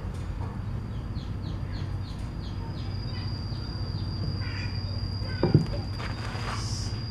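A snake hook lifts a snake out of a wooden box with one sharp knock about five and a half seconds in, followed by a short rush of noise. Behind it is outdoor ambience: a run of quick high chirps early on and a steady high insect trill over a low hum.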